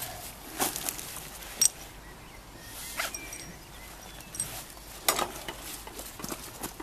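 Rustling with scattered sharp clicks and ticks, the sound of gear being handled.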